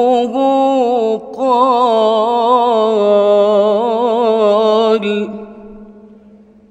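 A man's voice in melodic Quran recitation (tajwid), drawing out the word "rabbuhu": a short held note, a quick breath about a second in, then one long ornamented note with a wavering, trilling pitch that ends about five seconds in. The voice's echo in the mosque's reverberant hall dies away after it.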